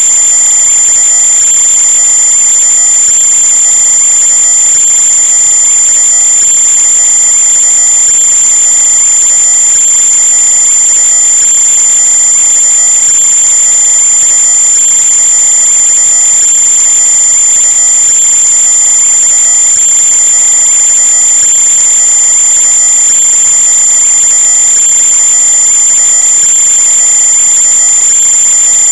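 A loud, steady high-pitched whine over a constant hiss, unchanging throughout.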